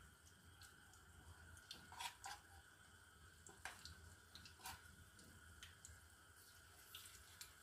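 Very faint kitchen sounds: a metal spoon clicking and squelching in a bowl of pakora batter a few times, over a low steady hiss from the gas burner and hot oil.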